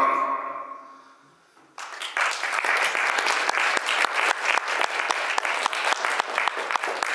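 The last droning note of a jew's harp fades away over about a second and a half, then after a brief pause audience applause breaks out and carries on.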